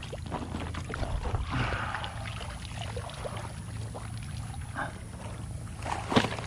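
Pond water splashing and dripping as a soft fabric tackle bag is handled and lifted out of shallow water, with rustling of the bag and grass, and a sharper knock about six seconds in as the bag is set down on the grass.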